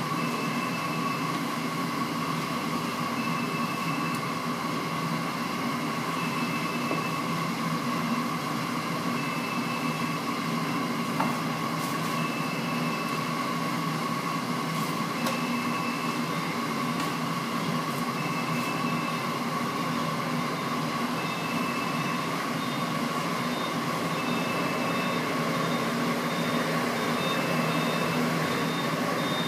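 Steady machinery drone with a constant whine, and a higher tone that sounds for a second or so every few seconds.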